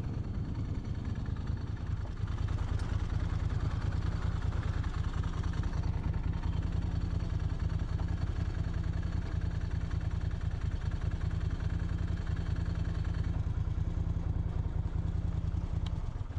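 Moto Guzzi motorcycle's transverse V-twin engine idling steadily, its low note holding the same pitch throughout.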